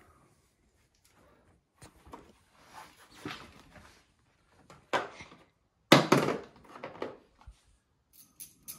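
Hand tools and tractor front wheel hub parts being handled: scrapes and light clinks, with two sharp knocks about five and six seconds in, the second the loudest.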